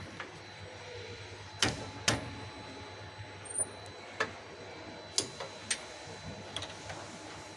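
Hand tools clicking and knocking on metal, a handful of short, sharp strikes with the two loudest close together about a second and a half in, over a steady low hum. This is spanner work on the crane hoist's brake as it is being adjusted.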